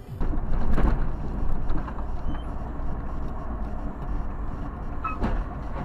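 A car driving, with a steady low engine and road rumble that starts abruptly about a quarter second in. It is picked up by a dash camera, with a couple of brief knocks.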